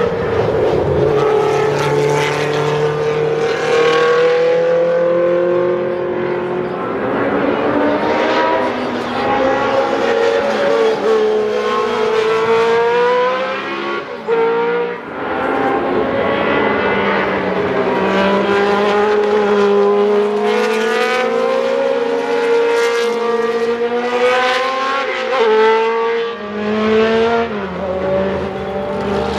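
Historic Can-Am sports-racing car engines at racing speed, several at once. Their pitch rises and falls again and again as the cars accelerate, shift and pass, with a brief lull about halfway through.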